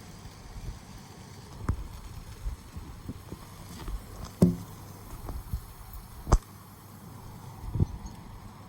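Light rain with wind rumbling on the microphone, broken by scattered taps and knocks of drops landing close by. The loudest knock comes about halfway through.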